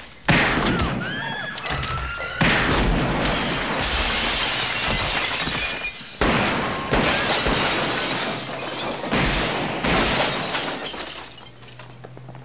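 Gunshots in a film shootout: four loud shots a few seconds apart, each followed by a long crash of shattering, breaking glass.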